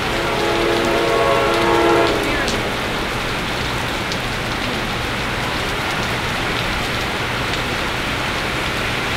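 Heavy rain hissing steadily, with the horn of the approaching Amtrak train sounding one sustained chord for about two seconds near the start.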